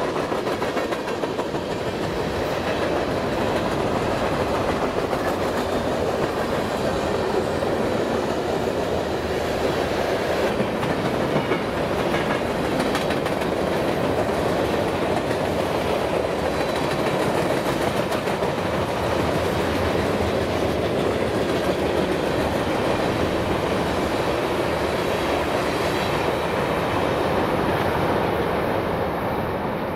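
Freight train cars rolling past, their wheels running on the rails in a steady, unbroken noise.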